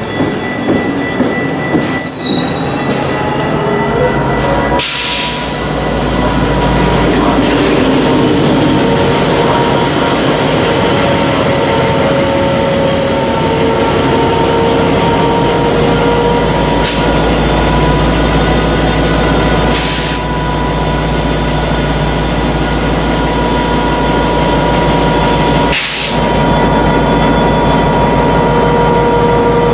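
Metrolink commuter train's wheels and brakes squealing as the bilevel coaches slow past. Then the train's diesel locomotive runs steadily alongside at a crawl or standstill, a constant rumble with held hum tones. Four brief sharp noises cut through it.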